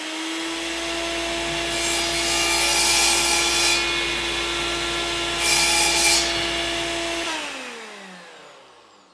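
Sound effect behind a series title card: a steady machine-like whir with two loud hissing swooshes. Near the end its pitch falls and it fades out, like a motor winding down.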